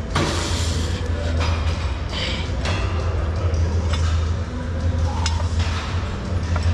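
Gym ambience during a 135 lb barbell bench-press set: bursts of hard breathing with the reps about every one to two seconds and a few light metallic clinks from the loaded bar, over a steady low hum.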